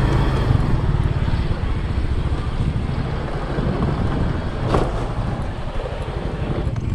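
Motorcycle running along a road, recorded from the bike, with a steady low rumble and wind on the microphone. A short knock about five seconds in.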